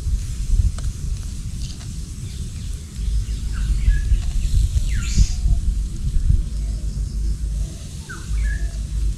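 Birds calling: a few short chirps that sweep downward in pitch, a few seconds apart, over a steady low rumble.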